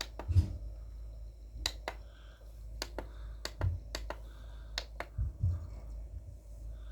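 Remote-control buttons clicking, a dozen or so sharp presses at irregular intervals while stepping through a DVD menu, with a few soft low thumps over a steady low hum.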